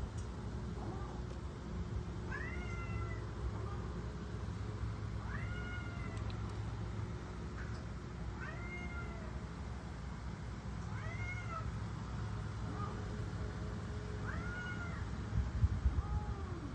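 Cat meowing: about five drawn-out calls, each rising then falling in pitch, roughly every three seconds, over a steady low hum.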